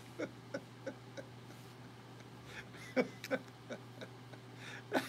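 A man chuckling quietly: a few short soft laughs near the start and again about three seconds in, over a faint steady hum.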